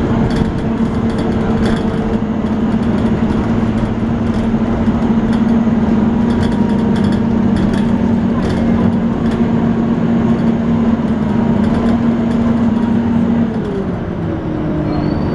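Volvo B9TL double-decker bus's six-cylinder diesel engine pulling steadily with the droning 'hoover' whine these buses are known for. Near the end the pitch drops and glides down as the revs fall.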